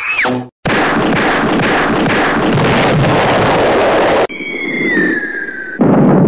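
A string of edited sound effects: a short rising whistle, then a loud rushing noise lasting about three and a half seconds that cuts off abruptly, then a falling whistle and a brief burst of noise near the end.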